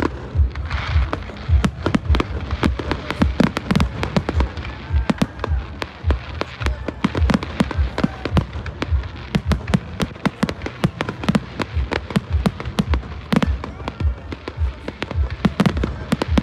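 Aerial firework shells bursting in quick, continuous succession, several bangs a second, deep thumps mixed with sharp cracks.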